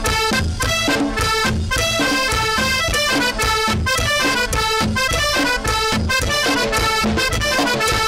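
Norteña band playing an instrumental passage, accordion leading over a steady beat.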